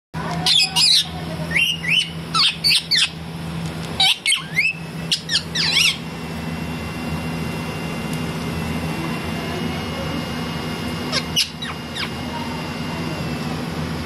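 Indian ringneck parakeet calling: a rapid run of sharp, sweeping squawks for the first six seconds, then two more calls near the end, over a steady low hum.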